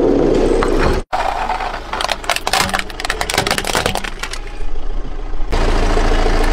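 Car tyre rolling over and crushing brittle objects: a dense run of sharp cracks and crunches through the middle, with a steady rumble of the rolling tyre at the start and again near the end.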